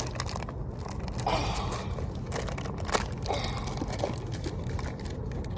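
Toy packaging being struggled with and pulled open by hand: irregular crinkling, scraping and small clicks of handled packaging.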